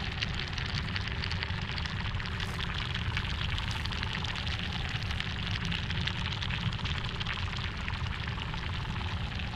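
Sound-design ambience: a steady, dense crackling fizz over a low rumble.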